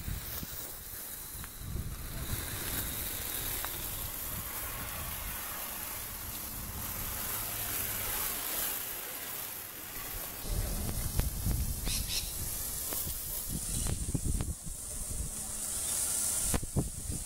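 Steel weight-pulling chain dragged over brick paving and a concrete footpath by a Boerboel in harness: a continuous metallic scraping hiss. From about ten seconds in, low thumps and rumbles join it.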